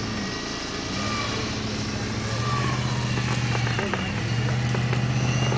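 Jeep Grand Cherokee winching itself through a deep mud hole on a line anchored to a tree: a steady motor drone that sags briefly and picks up again twice, with a few sharp cracks near the middle.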